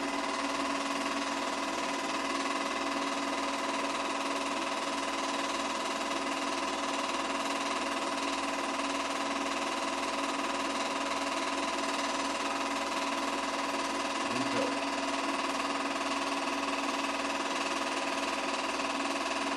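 A machine running steadily with an even, unchanging mechanical drone.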